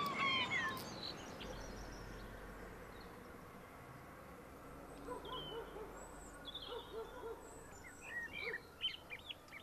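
Faint outdoor ambience with birds calling: short low hooting notes repeated from about halfway, and higher chirps that grow busier near the end.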